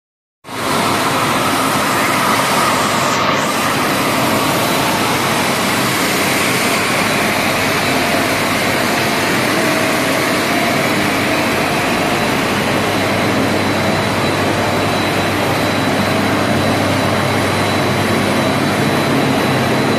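Four-strand PET strapping-band production line running: a loud, steady machine drone with a thin, steady high whine over it.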